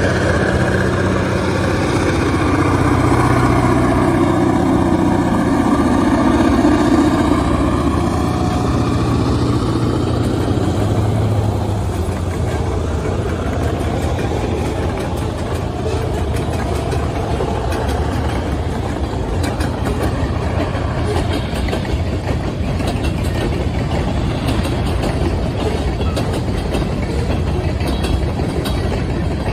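Diesel locomotive engine running under load as it approaches and passes, loudest about six to seven seconds in, then the steady clatter and rumble of freight hopper cars' wheels rolling over the rail joints.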